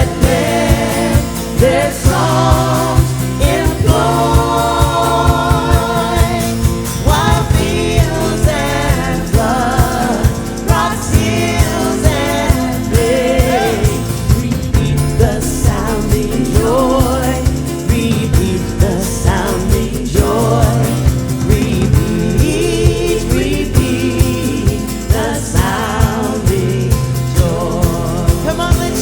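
Live worship band with singers performing a Christmas song: sung melody over sustained chords and a steady drum beat.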